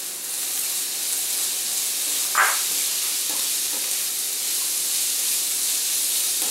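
Garlic, red onions, white beech mushrooms and Kalamata olives sizzling steadily in hot olive oil in a wok while being stirred with a wooden spoon. One brief, louder knock about two and a half seconds in.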